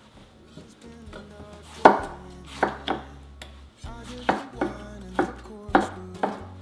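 Kitchen knife slicing and dicing tomatoes on a wooden cutting board: about eight sharp knocks of the blade on the board, starting about two seconds in and coming irregularly, one or two a second.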